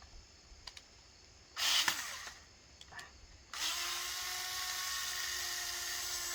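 Cordless power drill/driver backing out a screw: a short squeeze of the trigger about one and a half seconds in, then, about halfway through, a steady high whine of the motor running.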